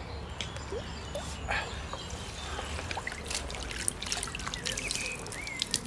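Lake water splashing and dripping as a tench is slipped back into the water, then a wet landing net is lifted out with water pouring and trickling from its mesh.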